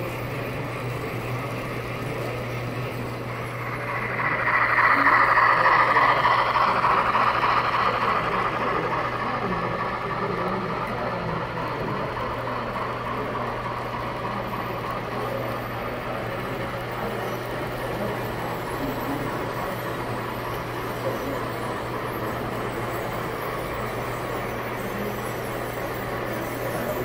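N scale model freight train rolling along the track with a steady whirring rattle of small wheels on rail. It grows louder about four seconds in and eases off over the next few seconds.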